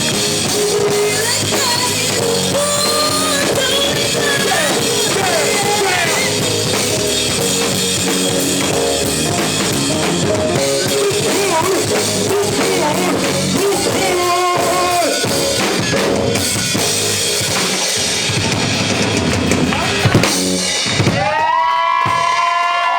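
Live band playing an instrumental passage, the drum kit's bass drum and snare driving it under the other instruments. Near the end the drums drop out and a few held tones slide upward and ring on.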